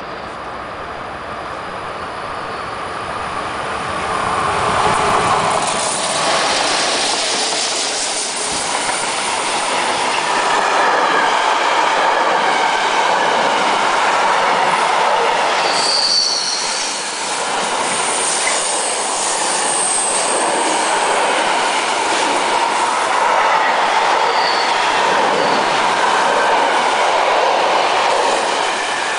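Freight train hauled by an SBB Re 10/10 (an Re 6/6 and an Re 4/4 II electric locomotive coupled together) drawing near, growing louder over the first few seconds, then a long string of container and tank wagons rolling past with steady wheel-on-rail noise. Brief high-pitched wheel squeals come a few times in the second half.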